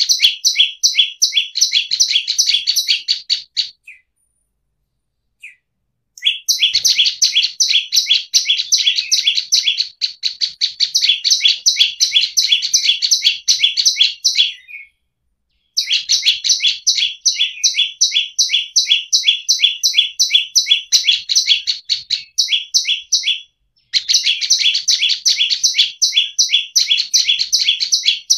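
Prenjak lumut singing: long bouts of fast, evenly repeated high chirps alternating between two pitches. The song breaks off briefly about 4 seconds in, again near the middle and once more near the end.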